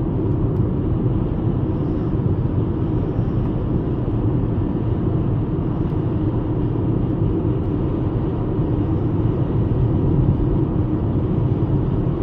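Steady engine and road noise inside the cabin of a 75 hp VW Golf Mk5 cruising at an even speed: a constant low rumble with tyre hiss.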